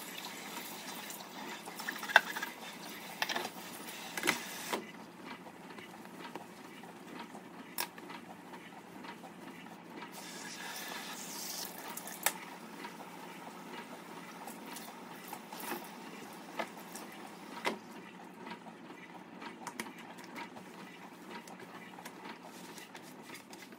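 Kitchen tap running water into a sink and over hands being rinsed, a steady splashing hiss that grows brighter about halfway through, with scattered light knocks of things set down or handled in the sink.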